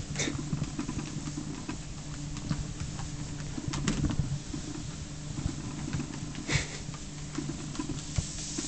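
ProForm treadmill running, its motor and belt giving a steady low hum, with soft irregular knocks from a cat's paws stepping on the moving belt.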